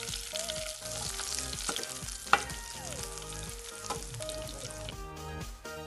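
Quail pieces sizzling in hot oil in a pan as they are lifted out with a perforated steel skimmer, with one sharp clack a little over two seconds in. The frying fades out about five seconds in.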